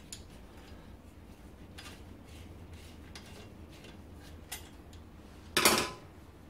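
Light metallic clicks and clinks of wire spokes and nipples being handled and worked on a motorcycle wheel rim, with one louder, brief metal clatter about five and a half seconds in.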